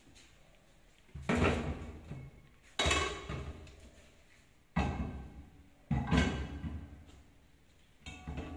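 Kitchen cookware being handled: four loud knocks a second or two apart, each ringing briefly and dying away, and another near the end.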